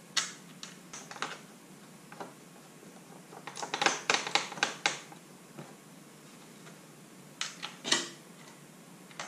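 Small metal hardware being fitted by hand onto a fairing's mounting-plate bolt: a washer and nut clicking and tapping against the bracket. There are scattered clicks, a quick run of about eight clicks near the middle, and a few more near the end.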